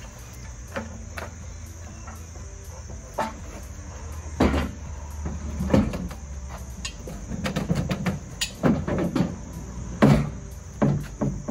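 Steel hand pallet jack being hoisted into a pickup truck bed: a series of irregular metal clanks and knocks, the loudest about four and a half, six and ten seconds in. A steady high insect chirring runs underneath.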